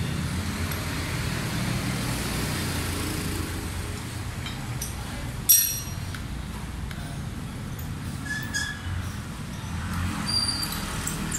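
Hand tools clinking on a motorcycle's steel brake disc while its mounting bolt is worked loose: one sharp metallic clink with a brief ring about five and a half seconds in, and a few lighter clicks and pings later. A steady low traffic rumble runs underneath.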